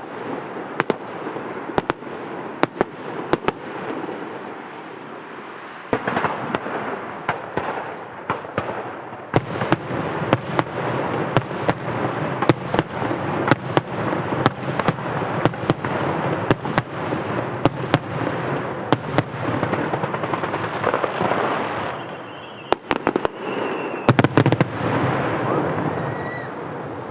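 Aerial fireworks going off in rapid succession: sharp bangs and crackles over a continuous rumble of bursts. The barrage gets denser about six seconds in, and there is a loud cluster of bangs near the end.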